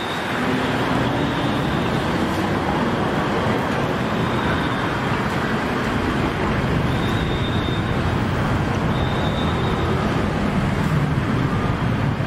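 Steady street ambience dominated by road traffic noise, with faint voices in the background.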